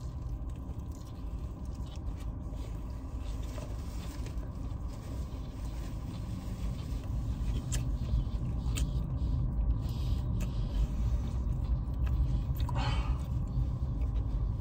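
Steady low rumble of a car heard from inside its cabin, growing a little louder partway through, with a few faint clicks and a short breathy sound near the end.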